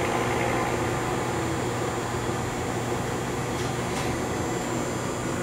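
Parker-Majestic cylindrical grinder running with its headstock and power table drives on, a steady electric motor hum, with a faint click about four seconds in.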